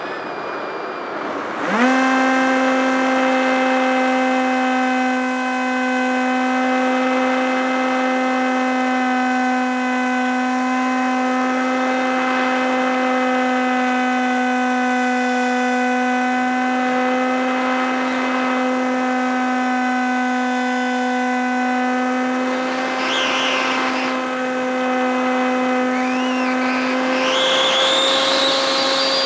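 Electric motor and propeller of a Multiplex EasyStar RC plane spinning up about two seconds in, then whining at one steady pitch, heard up close from a camera mounted on the plane over air rush. Near the end, higher rising whistles join.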